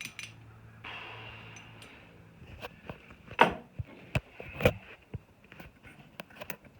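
Hand tools and metal parts being handled: a brief rustle about a second in, then scattered sharp knocks and clicks, the loudest two about three and a half and four and a half seconds in.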